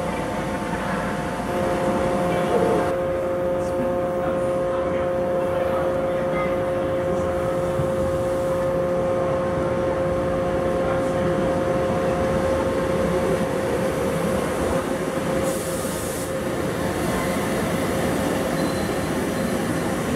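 SEPTA Silverliner IV electric railcars pulling into an underground station platform and rolling past close by, with a steady whine held under the rumble of the wheels for most of the approach.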